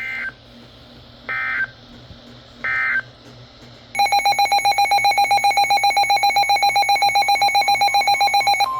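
Three short bursts of Emergency Alert System (SAME) data tones, the end-of-message code on a weather radio broadcast, about a second and a half apart. About a second later a loud, rapidly pulsing alarm tone comes in, about seven pulses a second. At the very end it gives way to a steady single tone.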